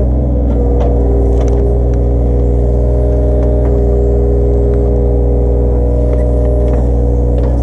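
Mini excavator's diesel engine running steadily at working throttle, with a higher whine that comes and goes as it works and a few faint knocks and clanks.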